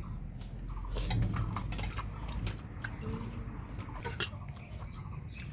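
People eating a meal from plates: occasional light clicks and clinks of dishes over a low background hum.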